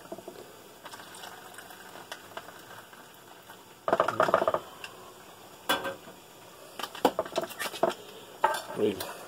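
Hot water poured into a foil ration pouch, a faint steady trickle. About four seconds in the foil crinkles loudly, followed by scattered crackles as the pouch is squeezed and its top folded over.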